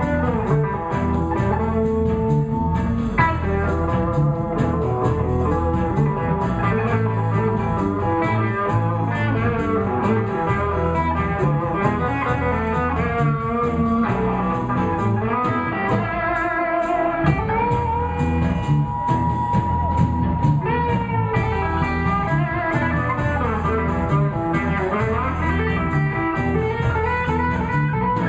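Electric blues band playing an instrumental break: a lead guitar plays bending notes, holding one long note midway, over bass and drums.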